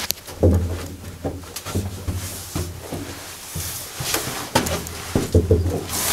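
Footsteps and scuffing on a gritty concrete floor, with irregular knocks and low thuds of people moving through a small, echoing concrete chamber.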